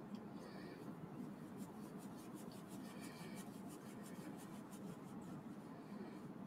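Small screwdriver turning a tiny screw into a plastic model-kit part: faint, rapid scratchy clicks, thickest through the middle.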